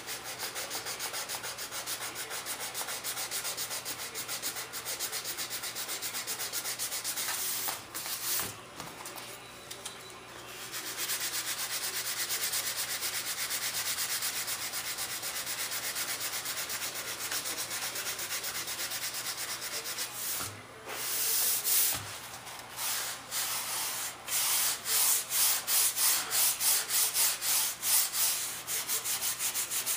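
Wooden hinge-hump strip on a model jet wing being hand-sanded with sandpaper: steady back-and-forth rubbing strokes. They pause briefly about eight seconds in, and near the end turn into distinct strokes at about two a second.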